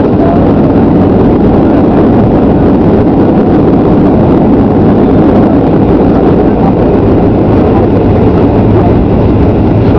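Loud, steady cabin noise of a Boeing 737-800's CFM56-7B jet engines and rushing air, with a low hum underneath, heard from inside the cabin as the airliner rolls along the runway after landing.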